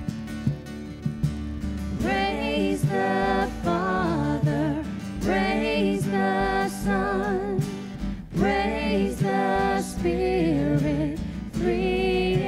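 A solo voice singing a slow worship song over accompaniment that includes guitar. The first couple of seconds are accompaniment alone, then the voice comes in with four held, wavering phrases, each with a short gap between.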